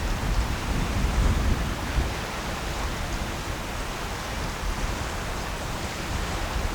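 Wind buffeting the microphone over a steady rushing hiss, gustier for the first two seconds.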